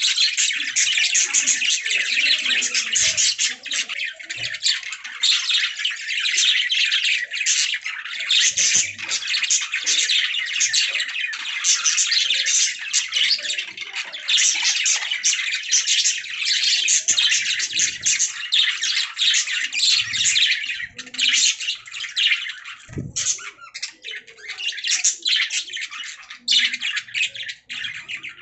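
Budgerigars chirping and warbling continuously in a dense chatter of rapid high chirps and squawks.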